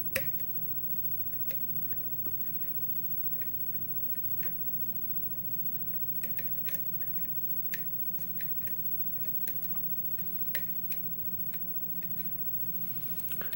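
Small irregular clicks of a short hook pick working the pin stack of a pin-tumbler lock with a tight Yale keyway, as it probes for the sixth pin. A steady low hum runs underneath.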